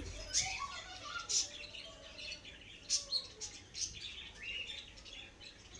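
Birds chirping in the background: scattered short, high calls, with a few faint clicks about three seconds in.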